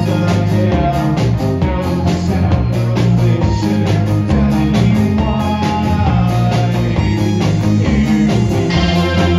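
Live rock band playing: electric guitars over a drum kit keeping a steady beat, with a low bass line underneath.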